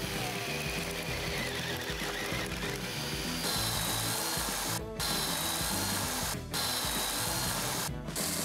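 Motor whine of a Worx JawSaw 20V cordless chainsaw running and cutting through branches, over background music. The sound drops out for a moment three times.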